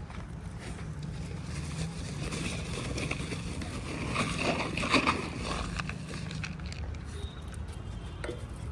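Outdoor road-traffic noise: a steady low rumble, with a louder swell about four to five seconds in.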